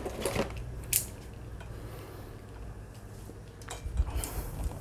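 Packaging and tools being handled: two short sharp clicks in the first second, then a brief rustle near the end.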